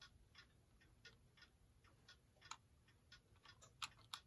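Faint, irregular light clicks and taps of small brass clock-movement parts being handled as the top plate is eased back over the gear train.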